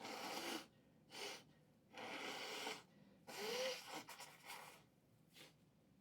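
Trading-card packaging being torn open: several short bursts of ripping and crinkling wrap, the longest about three and a half seconds in.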